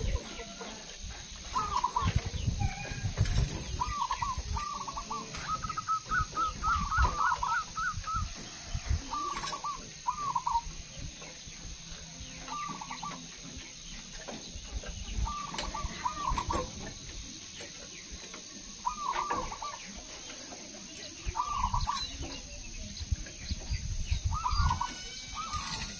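Caged zebra doves cooing: short phrases of quick, rolling coo notes repeated every few seconds, with one longer run of rapid notes about six seconds in.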